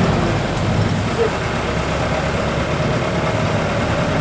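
Steady engine and road noise heard from inside a vehicle driving through heavy rain, mixed with the noise of the rain on it.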